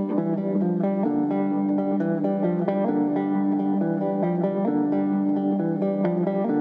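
Background guitar music: plucked notes in a quick, steady run.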